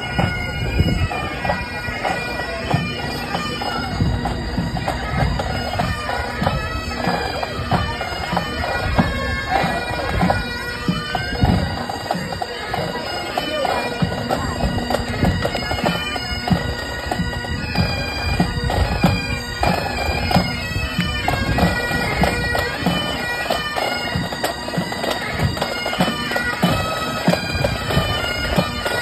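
A pipe band playing on the march: bagpipes with their steady drones under the chanter's melody, and snare and bass drums beating along.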